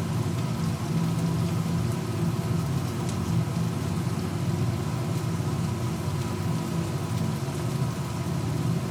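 Cut potatoes frying in hot oil, giving a steady sizzle and crackle.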